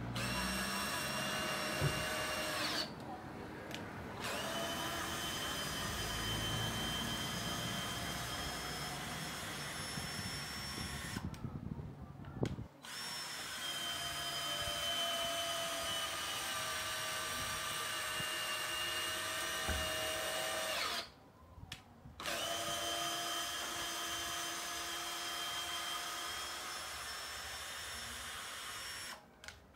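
Total TDLI20025 20 V cordless drill/driver driving a long screw into stacked wooden planks under load: a steady motor whine that stops briefly three times and starts again, then stops near the end.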